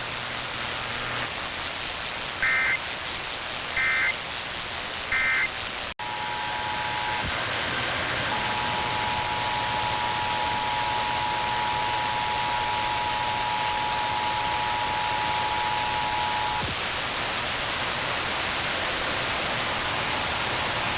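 Emergency Alert System tones over steady radio static. First come three short data bursts, the end-of-message code, about 1.3 seconds apart. Then, after a brief dropout about six seconds in, the steady two-tone attention signal sounds, first in a short blip and then for about eight seconds.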